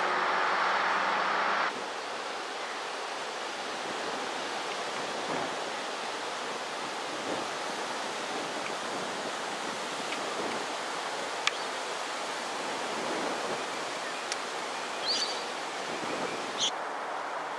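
A light-rail tram's running hum for the first second or two, then a steady outdoor rushing ambience, with a single sharp click and a couple of short bird chirps near the end.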